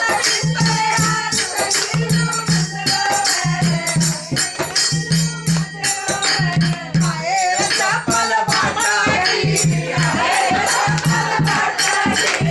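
A group of women singing a song together with hand clapping and rattling percussion over a steady low beat about once a second.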